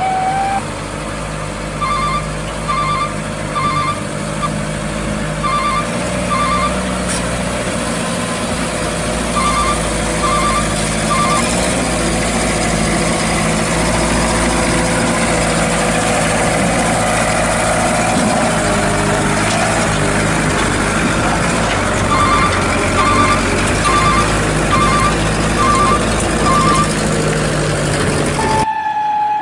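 RC truck's electronic sound module playing a diesel truck engine running steadily, with groups of quick electronic beeps like a reversing alarm repeating in three stretches. Near the middle the engine note slowly rises and falls in pitch.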